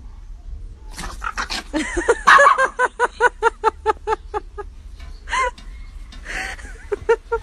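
Small dogs yipping and yelping in play, a rapid run of high yelps at about five a second, then a few more scattered yips near the end.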